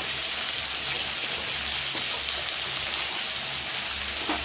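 Potato chunks, tomatoes and turmeric powder frying in hot oil in an aluminium kadai, a steady sizzle with a faint tick or two.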